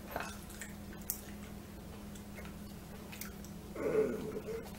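Quiet mouth sounds of people chewing jelly beans, with a few faint clicks, and a short closed-mouth groan about four seconds in. A faint steady hum sits underneath.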